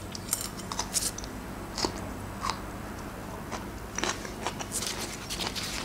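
Mouth sounds of chewing raw green pepper: crisp, irregular crunches in small clusters as it is bitten and chewed.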